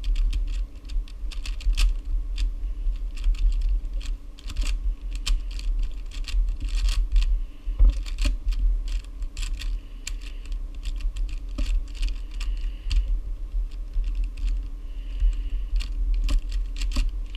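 YJ Guanlong speed cube being turned rapidly to scramble it, its plastic layers clicking and clacking in a fast, irregular stream. A steady low hum runs underneath.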